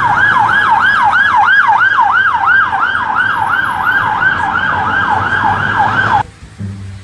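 Police van siren sounding a fast rising-and-falling wail, about three cycles a second, over a low traffic rumble; it cuts off suddenly about six seconds in.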